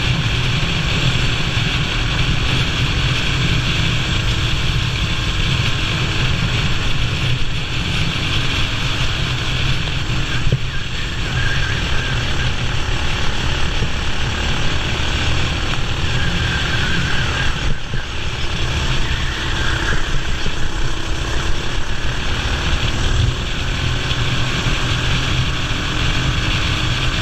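Racing kart engine running continuously at race pace.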